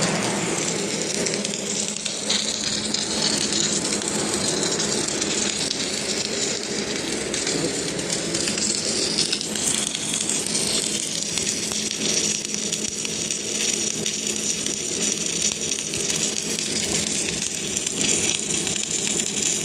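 Repaired automatic welding machine running on test: a steady hum with a continuous hiss and crackle over it.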